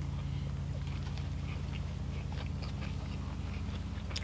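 People chewing mouthfuls of burger, with scattered small mouth sounds over a steady low hum.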